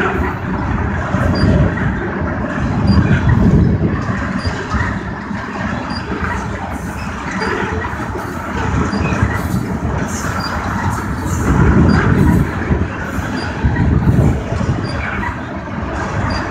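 Tank cars of a freight train rolling past a grade crossing: a steady rumble of steel wheels on rail that swells and fades as the cars' trucks go by.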